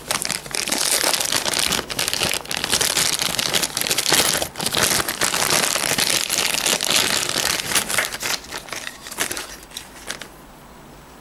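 Clear plastic bag crinkling loudly as hands open it and pull out a pair of cleats, stopping about ten seconds in.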